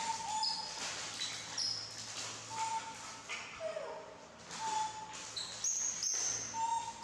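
Plastic snack-bar wrappers crinkling and rustling as they are handled and torn open. Short, high, whistle-like chirps come every second or so.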